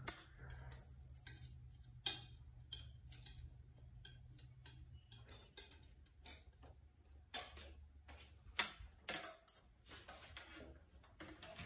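Irregular light clicks and taps of hand work in around a motorcycle's frame and fuel tank, as wire is worked through, over a faint low hum.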